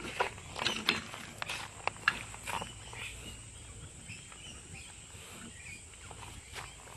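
A few sharp metallic clicks and knocks in the first three seconds, typical of lug nuts and a wheel wrench being handled while a car wheel is refitted. After that only a faint background remains.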